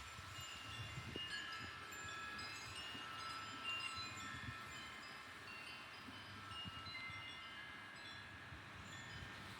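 Wind chimes ringing irregularly in the wind, many overlapping high, clear tones struck at random, over a faint low rumble of wind.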